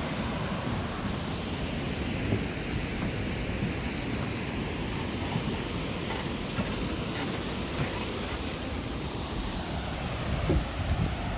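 Waterfall rushing steadily, a dense, even roar of falling water, with a few gusts of wind on the microphone near the end.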